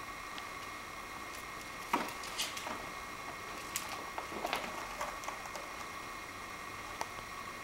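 Scattered light taps and scuffs of a kitten wrestling and rolling with a toy mouse on the carpeted base of a cat tree, over a steady faint hum.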